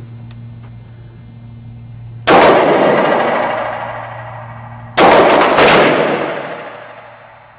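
Three gunshots: one about two seconds in, then two more close together about a second apart near the end. Each crack is followed by a long, echoing decay.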